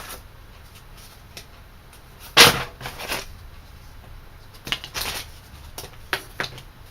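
Handling of torn cardboard packaging: a sharp knock about two and a half seconds in, then several lighter knocks and rustles.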